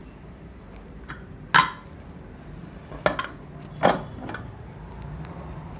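Metal clanks of a pressure cooker lid being opened and handled: three sharp knocks, the loudest about one and a half seconds in, each with a brief ring.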